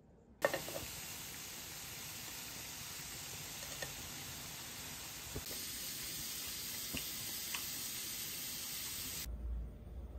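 Beef and green-onion kimchi sizzling on a hot pan as a steady frying hiss that starts suddenly about half a second in, with a few sharp pops of spitting fat.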